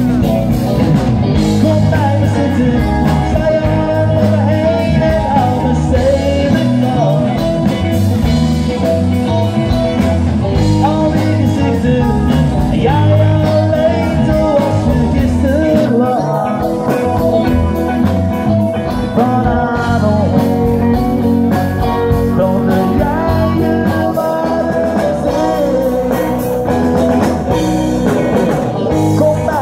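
A live band playing a pop-rock song, with a lead singer over guitar, bass and drums.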